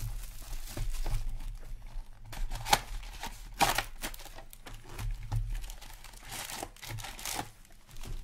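Plastic shrink wrap being torn and crumpled off a hockey card hobby box: irregular crinkling rustles with two sharp, louder crackles a few seconds in, then the lighter rustle of the box and foil packs being handled.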